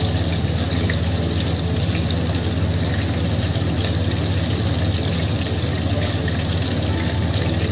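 Steady sizzling of obtuse barracuda pieces deep-frying in hot oil in a wok, over a steady low hum.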